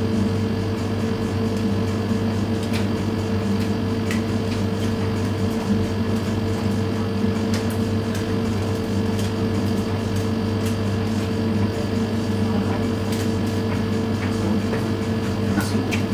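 Siemens front-loading washing machine running: a steady motor hum with a few faint clicks.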